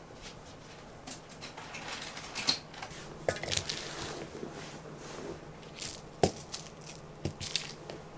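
Irregular light clicks, taps and rustles, loudest about two and a half seconds in and again about six seconds in.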